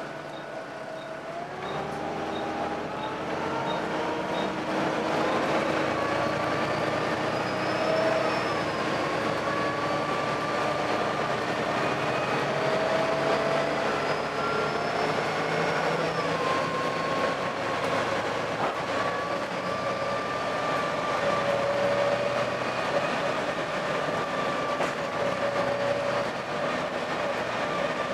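Volvo B7TL double-decker bus driveline running under way, a whining, multi-pitched tone that rises about two seconds in and then holds and wavers with speed: the unusual engine noise this bus is known for.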